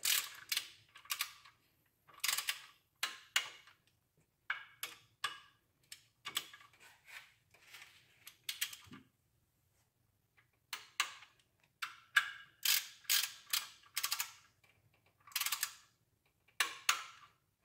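Ratchet wrench clicking in short bursts of rapid clicks, again and again, as the small outer cylinder-head bolts are tightened down to 11 foot-pounds. There is a brief pause about halfway through.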